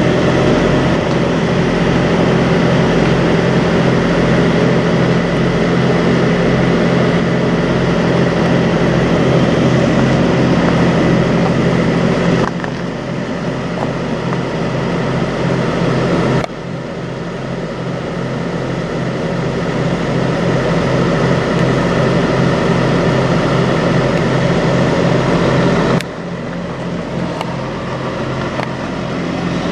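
Semi truck diesel engine idling steadily, with an even low throb. The level drops suddenly three times.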